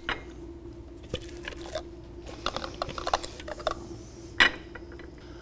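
Spatula scraping thick chickpea dip out of a plastic food processor bowl into a small ceramic bowl: soft scrapes and light clicks, with one louder knock about four and a half seconds in.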